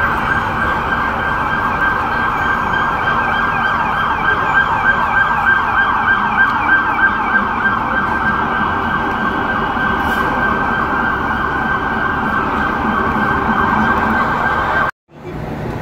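Emergency-vehicle sirens sounding in a fast, repeating up-and-down yelp over street traffic. The sound cuts off abruptly near the end.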